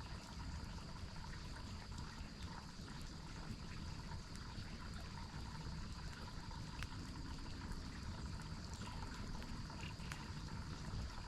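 Waterfall water running in a steady rush. A steady high tone and faint scattered clicks sit on top of it.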